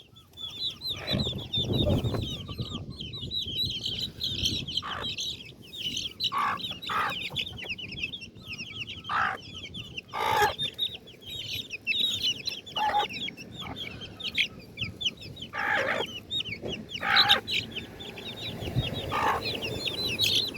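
Chickens clucking as they feed, with short separate calls throughout, over a constant high twittering.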